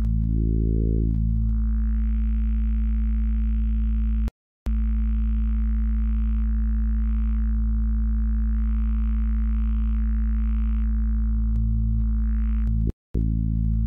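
Moselle software synthesizer's wave table oscillator sounding one sustained low tone straight out, with no envelope or filter. Its timbre changes as harmonics are painted into the wavetable, and the brighter upper overtones swell and fade. The tone cuts out briefly twice, about four seconds in and near the end.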